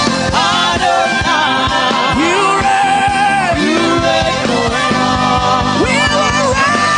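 Gospel worship music: a voice singing long, wavering notes over instrumental backing with a steady beat.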